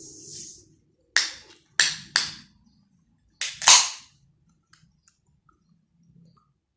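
Close-miked eating: five sharp, crunchy bites in quick groups, the last the loudest, then quiet chewing.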